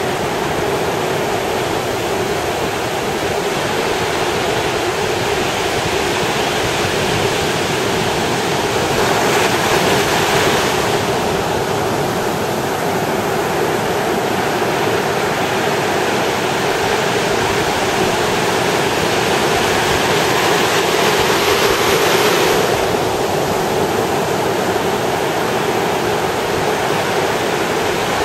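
Surf on a sandy beach: a steady wash of breaking waves, swelling twice as bigger waves break and hiss up the sand, about a third of the way in and again near the end.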